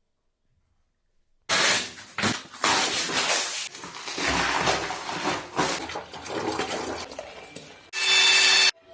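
After a short silence, a run of loud clattering and crashing noises, ending with a loud hiss that lasts under a second and cuts off suddenly.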